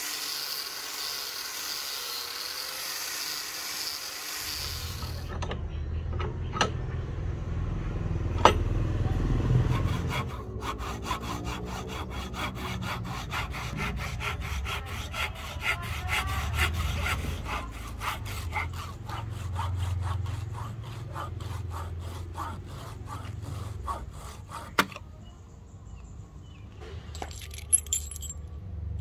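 A steady hiss for the first few seconds, then a few sharp knocks. From about ten seconds in, wood is sawn by hand in quick, even back-and-forth strokes, which stop near the end.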